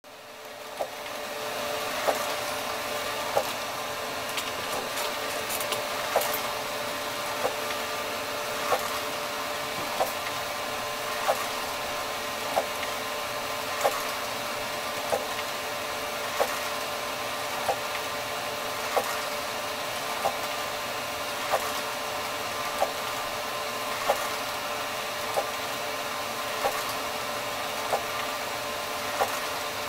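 ENCAD NovaJet 750 wide-format inkjet printer printing: a steady motor whir with a sharp click repeating about every 1.3 seconds.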